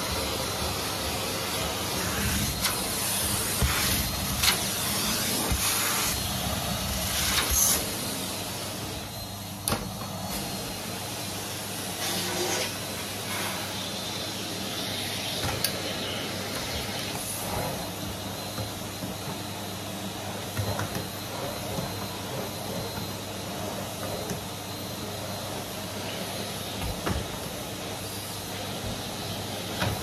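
Henry canister vacuum cleaner running steadily, sucking through its metal wand over carpet, with a few sharp knocks and clicks from the wand and tool. It is louder for the first eight seconds or so, then settles into a steady hiss and hum.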